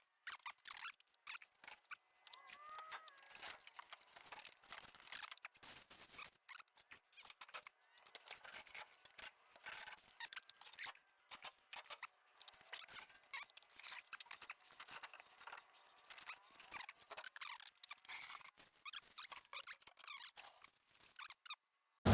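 Faint, irregular clicks, scrapes and light rattles of objects being handled and moved about, with a few brief squeaks about two to three seconds in.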